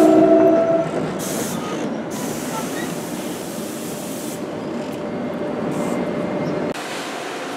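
NJ Transit Comet V passenger coaches rolling along the platform, a steady rumble of wheels and cars. A train horn finishes sounding in the first second, and a hiss rises and fades a few times over the rumble.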